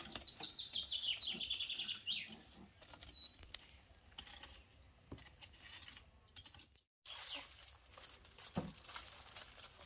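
A small songbird singing a quick run of repeated high, falling chirps for about two seconds, then faint outdoor background with a few light ticks and a soft knock near the end.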